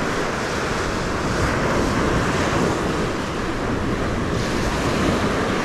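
Waves washing onto the beach in a steady rush, with wind buffeting the microphone.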